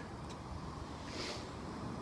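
Light handling of a new wheel bearing and steel brake drum, with a soft scrape about a second in, over a steady low outdoor rumble.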